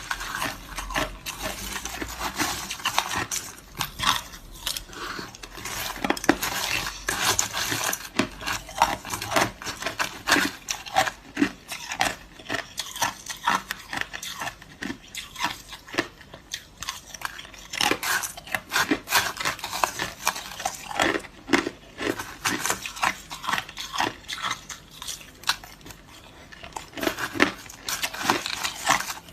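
Hard crushed ice crunching and clinking: a dense, irregular run of sharp cracks and clicks throughout.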